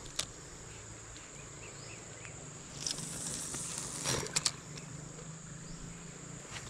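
Steady high-pitched drone of insects, with a few short clicks and knocks, the loudest a quick pair about four seconds in.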